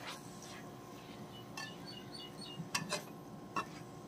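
Metal spatula scraping and clinking against a metal karahi while stirring a fried vegetable, chicken and egg mix, with a few sharp clinks about one and a half, three and three and a half seconds in.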